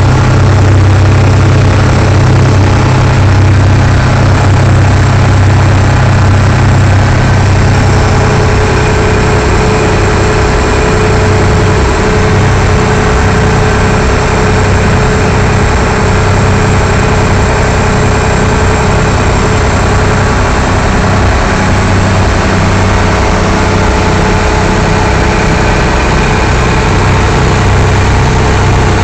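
Motorboat engine running steadily under way, heard from inside the boat's wooden cabin as a loud, constant low drone.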